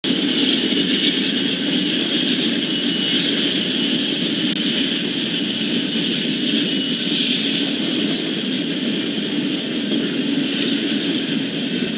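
Norfolk Southern intermodal train led by two GE Dash 9-40CW diesel locomotives passing, a steady rumble of engines and wheels on the rails, with a couple of brief high squeals.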